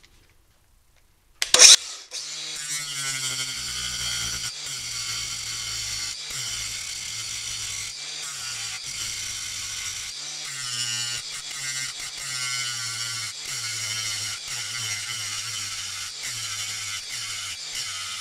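Angle grinder grinding the cap off a steel rivet on a plow coulter hub, to free the hub. It starts with a loud burst about a second and a half in, then runs steadily with a hissing grind, its motor note sagging and recovering again and again as the disc is pressed into the metal.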